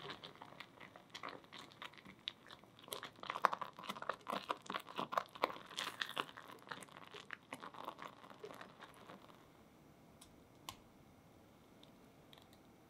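Thick strawberry puree bubbling and popping in a saucepan while it is stirred with a silicone spatula, a busy irregular crackle of small pops and wet squelches that thins out and stops about nine seconds in.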